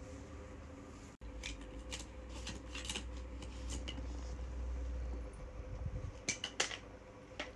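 Light plastic clicks and taps, scattered and irregular, as a toy fishing rod, a small plastic net and plastic toy fish are handled. A faint steady hum runs underneath.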